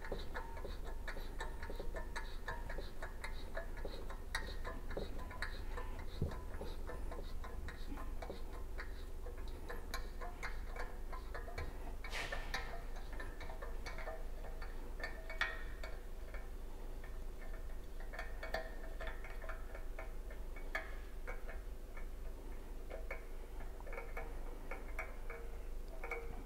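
Thread tap being turned by hand with a tap wrench, cutting threads into an aluminum oil pan for a turbo oil-return adapter: a run of small irregular clicks and ticks, with one louder click about twelve seconds in.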